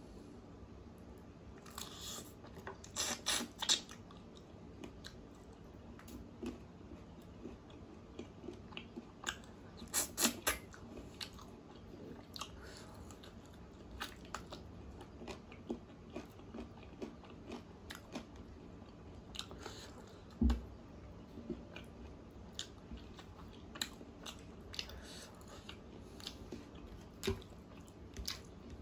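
Close-up chewing and biting of chicken curry and rice eaten by hand: a run of small wet mouth clicks, with louder spells of chewing about 2 to 4 seconds in and about 10 seconds in, and one dull thump around 20 seconds in.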